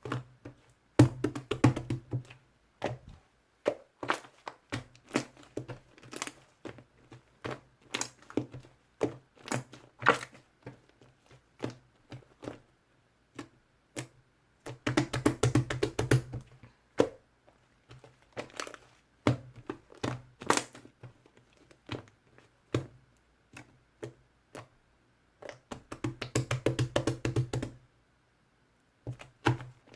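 Slime with foaming bubble cleanser mixed in, being squeezed and folded by hand, giving sharp wet popping clicks. Three times, near the start, in the middle and near the end, the pops speed up into a run of rapid crackling.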